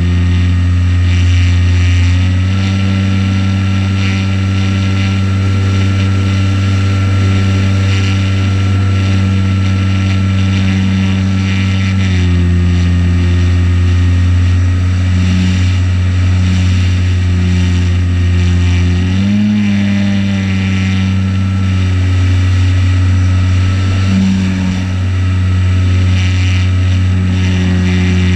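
Electric motor and propeller of a RocHobby Waco RC biplane, heard from a camera on its top wing in flight: a steady whine over wind rush, stepping up in pitch about two seconds in, dropping around twelve seconds, with a brief dip and surge near twenty seconds as the throttle is worked.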